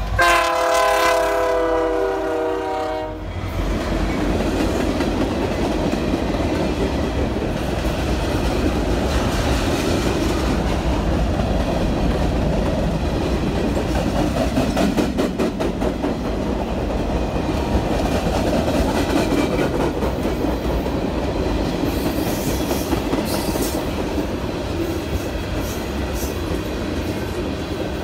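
CN freight locomotive sounding its horn in one long blast as it passes close by, cutting off about three seconds in. Then the mixed freight train's cars roll past with a steady rumble and wheels clicking over rail joints.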